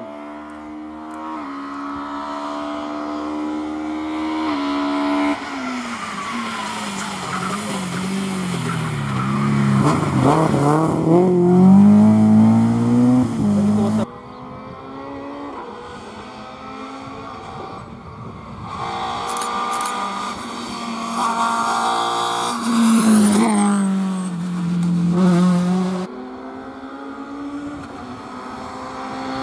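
Rally car engines at full throttle on a tarmac stage: the engine note climbs and steps at each gear change, falls away as the car brakes and downshifts for a corner, then climbs again as it pulls away. The sound cuts off abruptly twice, about halfway through and near the end, jumping to other passing cars.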